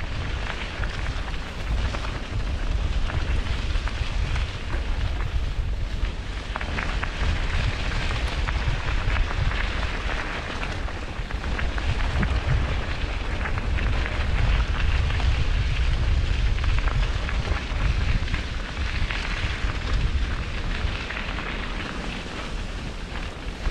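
Waterfall rushing: a steady wash of falling water with a deep rumble underneath.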